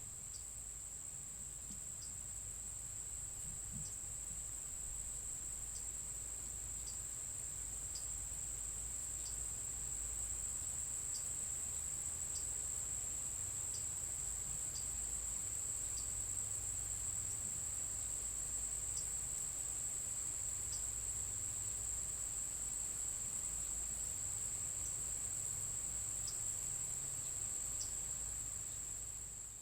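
Insect chorus, like crickets, holding one steady high-pitched trill, with faint short chirps at irregular intervals of about a second.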